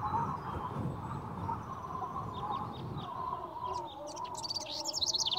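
Small songbirds singing, with faint chirps mid-way and a rapid high trill from about four seconds in, over a steady low wavering tone.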